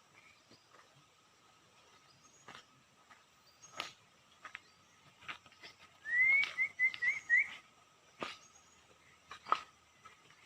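A bird sings a short phrase of quick, rising whistled notes about six seconds in. Sharp clicks come now and then, and fainter bird notes and a thin steady tone sit behind.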